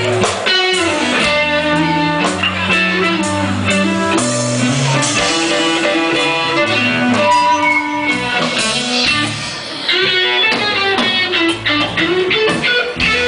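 Live rock band playing an instrumental passage: electric guitar lines over bass guitar and drums, with no singing. There is a short drop in loudness past the middle before the band comes back in full.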